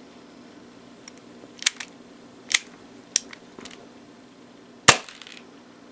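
An airsoft TT-33 gas pistol, aimed into a chronograph, gives several light clicks as its trigger and action are worked. About five seconds in it fires one sharp shot.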